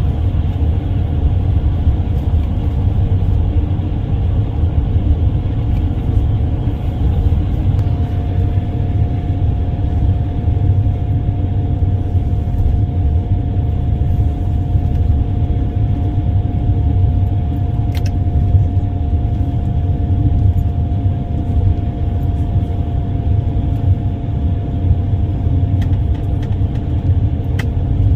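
Steady low rumble of a moving road vehicle, with a faint steady whine held above it throughout.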